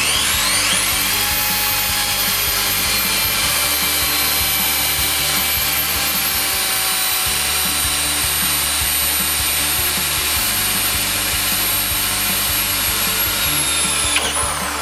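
Corded drill-driver motor spinning up to speed with a rising whine, running steadily at constant pitch, then winding down near the end.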